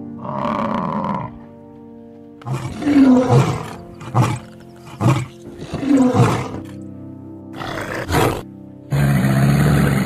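A lion roaring, a run of about four roars roughly a second apart, over steady background music. A short animal call sounds at the very start, and a noisy rush of about a second comes near the end.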